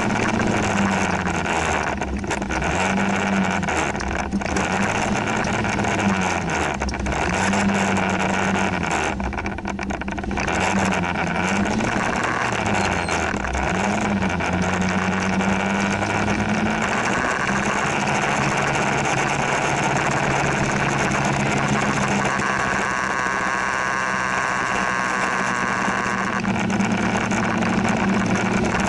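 Motor scooter engine running under way, its pitch rising and falling with the throttle through the first half and holding steadier later, under a steady rush of wind and road noise.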